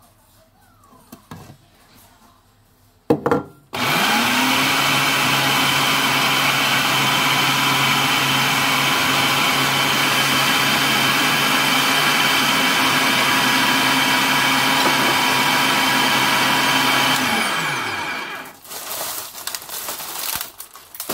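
Food processor motor grinding Oreo cookies and butter into crumbs: a short pulse about three seconds in, then a steady run of about fourteen seconds, its whine rising as it spins up and falling as it winds down. A few clicks and knocks of handling follow near the end.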